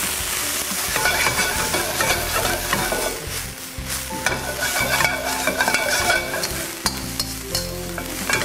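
Pea shoots sizzling in sesame oil in a hot wok, stirred and tossed with a metal wok spatula that scrapes and clicks against the pan again and again.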